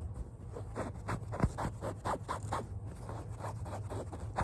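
Fingertips scratching an object for ASMR in quick repeated strokes, about three or four a second, with one sharper knock about a second and a half in.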